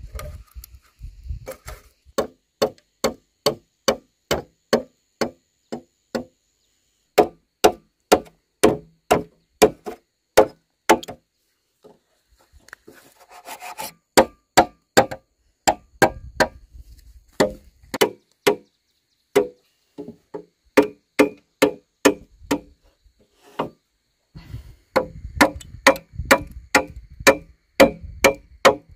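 Machete chopping into green bamboo poles to cut notches in their ends: runs of sharp wooden strikes, about two a second, with a few short pauses.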